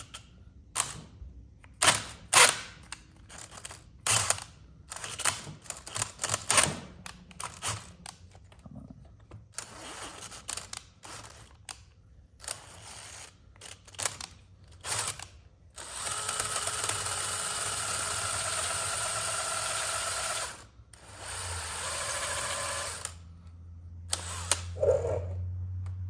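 Hand-held electric drill boring out a damaged bolt hole for a coil thread insert: a run of knocks and clatter from the bit and tool handling, then two steady runs of the drill motor, a few seconds each.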